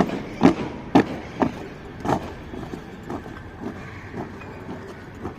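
Sharp claps and knocks of a squad's synchronised rifle drill. Five strong strikes come about half a second apart over the first two seconds, then softer knocks follow at a similar pace.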